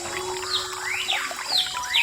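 Background music with held low notes and quick whistle-like sweeps, falling and rising, about three times.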